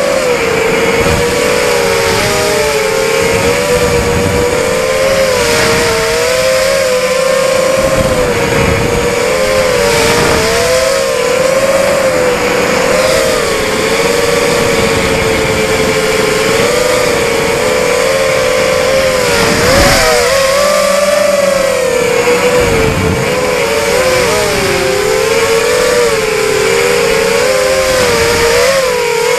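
Whine of a racing quadcopter's four Quanum 2204 2300KV brushless motors spinning KingKong 5040 three-blade props, heard from the onboard camera. The pitch wavers up and down with throttle and climbs sharply about two-thirds of the way through, with gusts of wind noise on the microphone.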